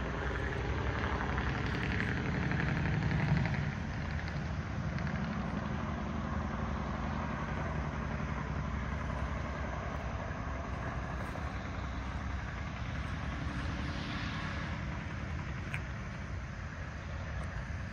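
Outdoor ambience dominated by the steady low rumble of distant road traffic, swelling louder in the first few seconds as a vehicle passes.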